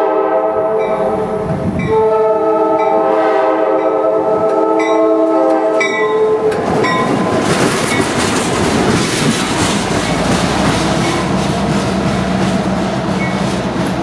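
Norfolk Southern GP38-2 diesel locomotive sounding its several-note horn chord: the end of one blast, then a long blast that stops about six and a half seconds in. The locomotive then passes close by with its diesel engine running and wheels clicking over the rail joints, hauling a single tank car.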